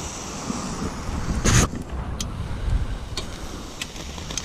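Metal parts of a smoker and grill being handled: one sharp clank about one and a half seconds in and a few lighter clicks, over a steady background rush.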